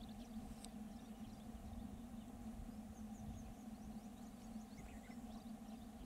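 Faint outdoor ambience: a steady low hum and rumble, with a few faint, short high chirps of distant small birds in the second half.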